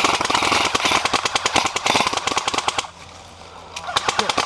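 Airsoft M60 electric gun (AEG), upgraded with a new motor and an 11.1 V battery, firing on full auto: a long burst of rapid clicks, a break of about a second, then a second burst near the end.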